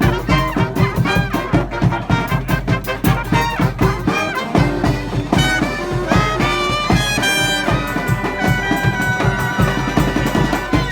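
Brass marching band playing a march, horns over a steady drum beat, with long held horn notes in the second half.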